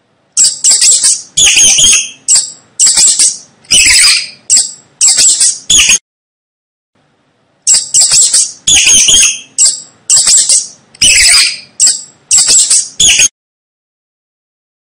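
Mice squeaking: a quick run of about ten short, high-pitched squeaks and chirps, a pause of about a second and a half, then the same run again, cutting off abruptly near the end.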